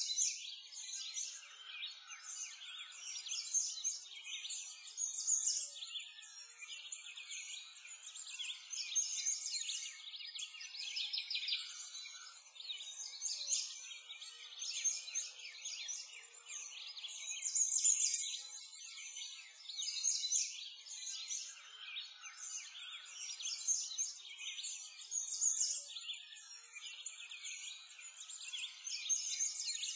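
Many small birds chirping and twittering in a dense, continuous chorus of rapid, high trills.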